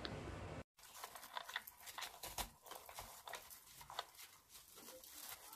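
Artificial Christmas greenery rustling and crackling as the stems are handled and arranged, in irregular small clicks and crinkles.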